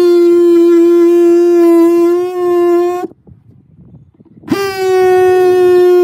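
Cordless oscillating multi-tool sawing into the sheet metal of an old gas tank, a steady high-pitched buzz that sets the tank vibrating. It stops about three seconds in and starts again a second and a half later.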